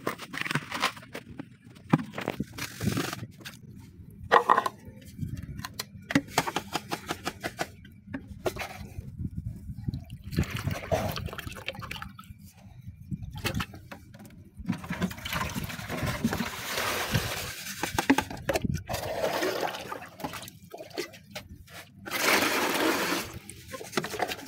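Water being scooped and poured with a steel bowl in a plastic drum of dark charcoal water, splashing and running in bursts in the second half. Knocks and clatters of the plastic containers and a mesh sieve come in the first half.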